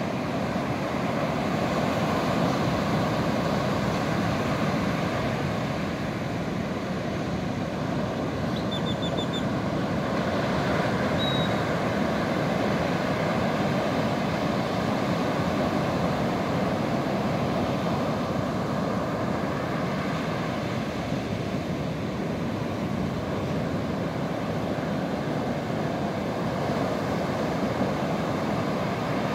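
Pacific Ocean surf breaking on a sandy beach: a continuous wash of waves that grows slightly louder and softer in turn. A few faint, short, high chirps come about nine and eleven seconds in.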